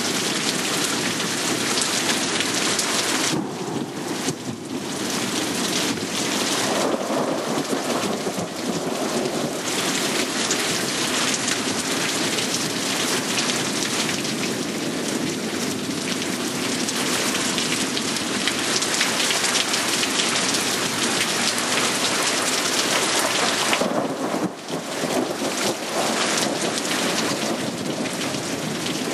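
Steady rain falling during a thunderstorm, with thunder rumbling under it and a brief lull in the rain near the end.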